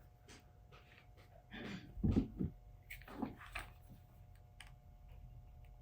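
Faint handling noises: a few soft knocks and scrapes as a metal spanner tool is fitted onto the retaining ring in a flashlight head.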